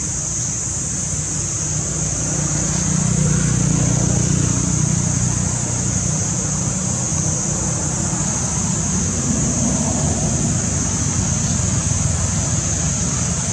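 Steady outdoor background: a continuous high-pitched buzzing hiss over a low, even rumble, with no distinct calls or knocks.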